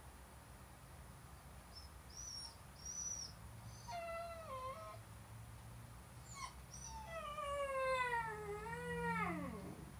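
Basenji howling: a few high, thin squeaks about two seconds in, then a short pitched call, then a longer wavering howl that falls in pitch and slides steeply down at its end.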